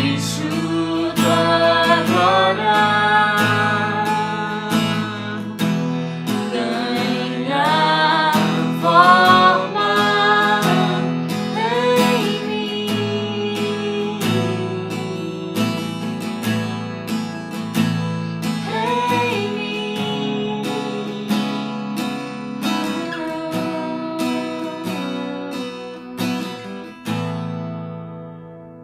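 Acoustic worship song: strummed acoustic guitar under a sung melody, which dies away at the end of the song.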